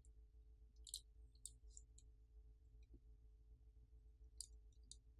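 Near silence, with a few faint, sharp ticks about a second in and again near the end: fingertips handling a smartphone's stacked main circuit board.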